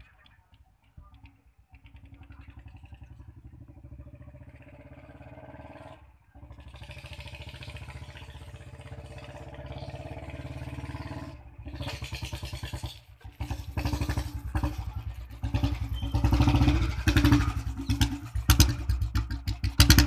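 Old Royal Enfield Bullet's single-cylinder engine thumping with its dug-dug exhaust beat through a long Punjabi-style bent-pipe silencer as the motorcycle approaches. It starts faint and grows steadily louder, with a few brief drops in the sound along the way, and is loudest near the end.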